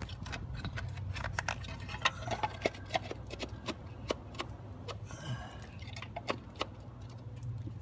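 Irregular sharp clicks and light metallic clinks of hand tools and parts being handled, over a steady low hum.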